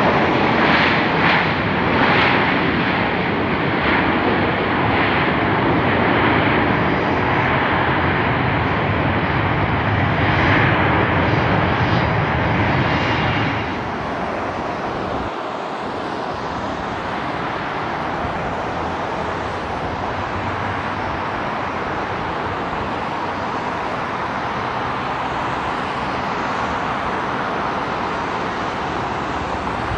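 Jet engines of Boeing 737 airliners on the runway: a loud roar from a Southwest 737-700 for about the first half, then, after a sudden drop about 14 seconds in, a quieter, steady jet noise from another 737.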